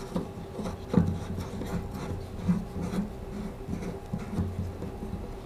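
Handling sounds of shower fittings: irregular clicks, knocks and rubbing as a handheld-shower bracket is threaded onto a diverter valve.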